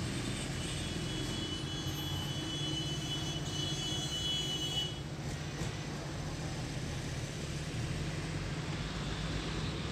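Steady low rumble of a vehicle engine running, with a faint thin high-pitched tone over it for the first five seconds or so.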